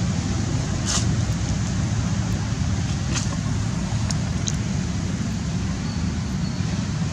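Steady low outdoor background rumble with a hiss over it, and a few brief faint clicks about a second in and again around three to four and a half seconds.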